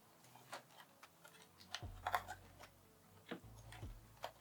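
Scattered light clicks and taps of small CPU-cooler parts and brackets being handled, about half a dozen at irregular times.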